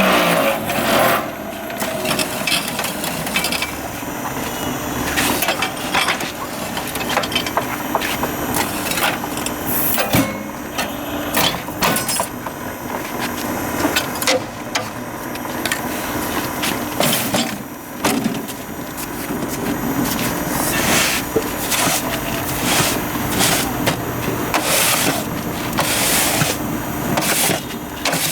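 Hollow concrete block making machine at work: a steady machine hum under frequent, irregular metallic clanks and knocks.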